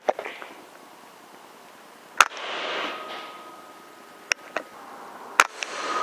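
Two PCP air rifle shots about three seconds apart, each a sharp crack followed by a brief hiss. A couple of fainter ticks fall between them.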